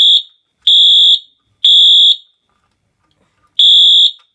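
24-volt DC fire alarm horn sounding the temporal-three evacuation pattern: loud, high-pitched half-second blasts, three about a second apart, then a pause of about a second and a half before the next group starts. It has been set off by a pulled manual pull station and runs on three 9-volt batteries clipped together.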